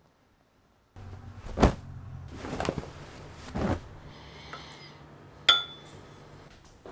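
A spoon stirring in a ceramic bowl: a few dull knocks about a second apart, a short scrape, then one sharp ringing clink of spoon on ceramic about five and a half seconds in, over a low steady hum.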